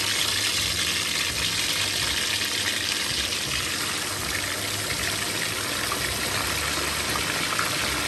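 Whole small tuna deep-frying in hot oil in a pan, a steady sizzle.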